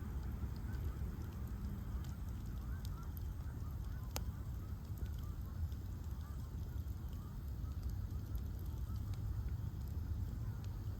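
Bonfire of ash logs burning with a steady low rumble and scattered crackles, and one sharper pop about four seconds in. Many short honk-like calls sound behind the fire throughout.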